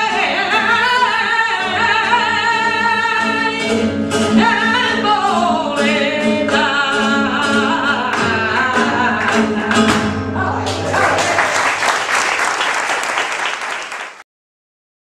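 A woman singing a flamenco malagueña with long melismatic held notes over Spanish guitar accompaniment. About ten and a half seconds in the song ends and audience applause breaks out, then the sound cuts off abruptly.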